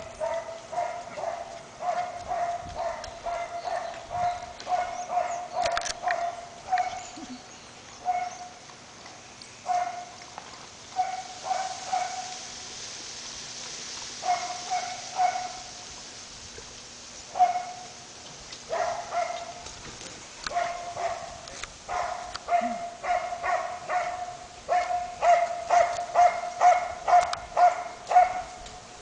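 A puppy barking repeatedly in short, high yips, in bouts with pauses, then in a quick even series of about three or four barks a second near the end.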